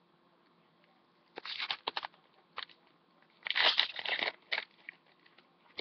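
A Pokémon trading-card booster pack's foil wrapper being torn open and crinkled by hand, in short crackling tears that begin about a second and a half in.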